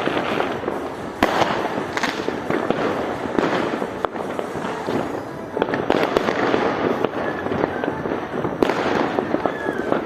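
Fireworks going off in dense, continuous volleys of crackling and banging, with sharper loud bangs standing out about a second in, around six seconds in and near the end.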